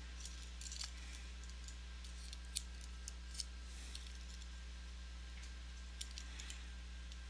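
A few faint, scattered small clicks over a steady low electrical hum.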